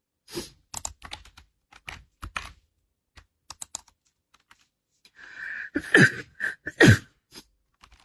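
A string of light clicks and taps, then two short, loud sneezes from a woman about a second apart near the end, each falling in pitch.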